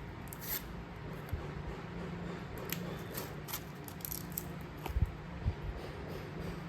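Soft scattered clicks and rustles of handling, with a few dull thumps about five seconds in, over a steady low hum.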